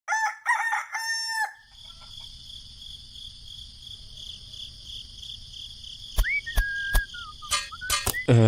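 A rooster crowing once in several linked parts, about a second and a half long, then a steady quieter background. From about six seconds in come several sharp clicks and a short whistle-like tone.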